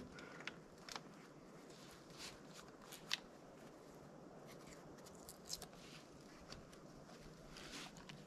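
Faint, scattered handling noises: small clicks and rustles, with one sharper click about three seconds in.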